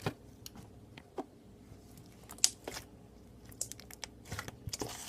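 Sparkly pink slime squished and worked by hand, giving scattered small sticky pops and clicks, a little more often near the end.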